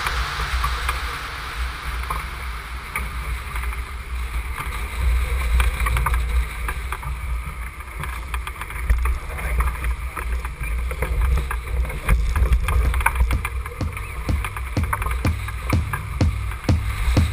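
Wind rumbling on the microphone and water rushing along the hull of a sailing yacht heeled over in rough water, with splashes and knocks that come more often in the second half.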